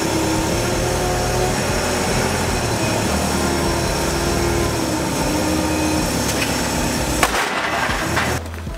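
Diesel engine of a wheel loader running steadily under load as it carries a steel frame on its forks. There is a metallic clatter about seven seconds in, and the engine noise drops away near the end.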